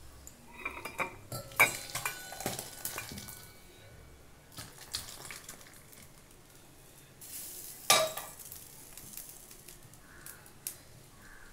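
Stainless steel pots clinking and knocking together as thick sambar is poured from one pot into another, with a run of sharp clinks in the first few seconds and a loud metal knock about eight seconds in.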